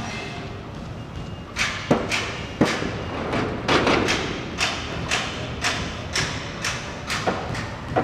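Construction site din with hammering that starts about one and a half seconds in and goes on at an even pace of roughly two blows a second.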